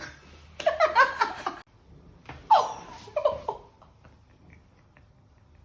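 A person laughing in short bursts, then a louder cry that falls in pitch, followed by more laughter. The sound dies down after about three and a half seconds.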